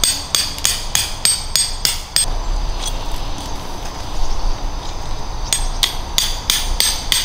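A tent peg being hammered into gravel ground: two runs of quick, ringing strikes, about four a second. One run is at the start and the other begins about five and a half seconds in, with a pause between them.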